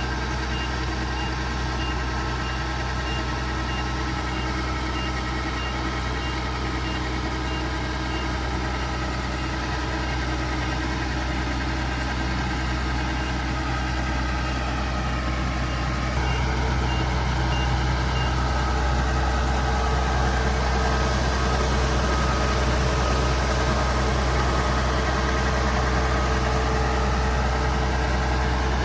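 Kubota DC70 Pro combine harvester's diesel engine running steadily. A rapid high beeping sounds at a few beeps a second for the first several seconds and briefly again in the middle. The engine gets louder about halfway through.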